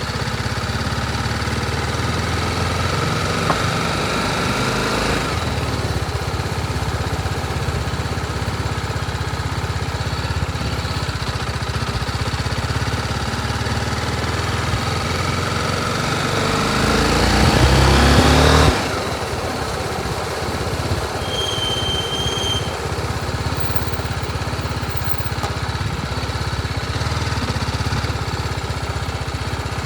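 BMW G 310 RR's single-cylinder engine idling, revved briefly about four seconds in, then climbing to a high rev that drops back suddenly to idle. A short high beep follows a few seconds later.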